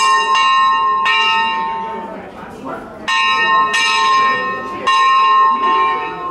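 Small wheel-mounted bell on a cliff face, rung by pulling a rope from below. It strikes about six times at uneven intervals, each stroke ringing on and fading, with a pause of about two seconds midway.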